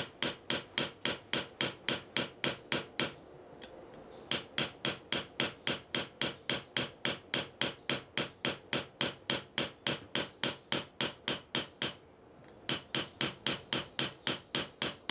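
Small hammer tapping a steel chisel against the iron ground of a Higo zogan sword guard (tsuba) in quick, even light strikes, about five a second. The run of taps pauses for about a second twice as the chisel is moved along the work.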